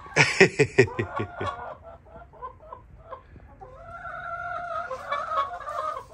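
Chickens clucking: a quick run of loud, sharp clucks in the first second and a half, then softer scattered sounds, and a longer drawn-out call with a steady pitch near the end.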